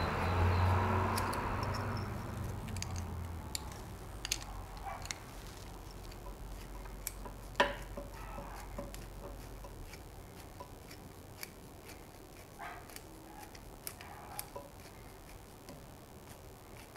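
Faint, irregular clicks and ticks of a nut driver turning the screw of a hose clamp, tightening the GY6 carburetor onto its rubber intake boot, with one sharper click about halfway through. A low rumble in the background fades away over the first few seconds.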